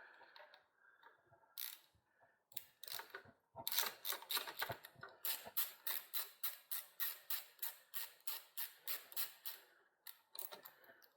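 A ratchet mechanism clicking: a run of evenly spaced sharp clicks, about four a second, for around six seconds, after a few scattered knocks.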